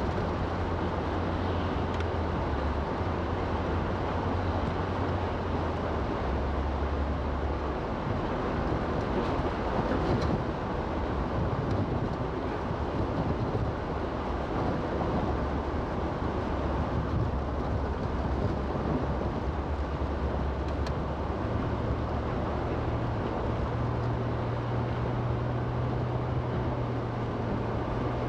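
Car driving on a snow-covered road, heard from inside the cabin: a steady rush of tyre and road noise under a low engine hum that shifts pitch several times and steps up near the end.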